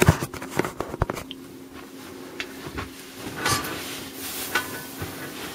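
Handling noise at a workbench: several quick knocks and taps in the first second, then soft rustling of a paper sheet, over a steady low hum.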